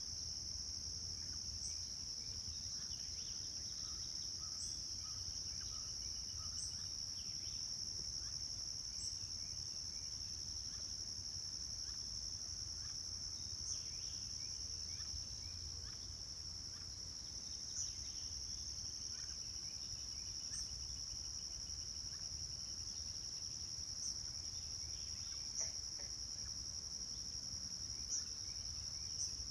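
Steady high-pitched chorus of insects, with a short high chirp every few seconds and a faint low rumble underneath.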